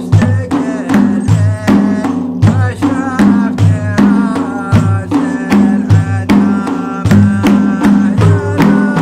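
Instrumental passage of Gulf samri folk music: drums strike a steady rhythm, about three beats a second, under a sustained melody.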